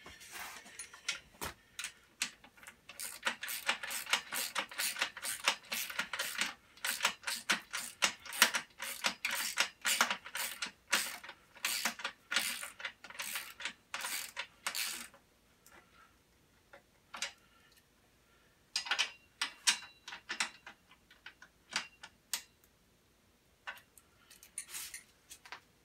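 Ratchet wrench clicking in quick runs of strokes while tightening nylock nuts on the stand's frame. The clicking is dense for most of the first fifteen seconds, then comes in short scattered bursts.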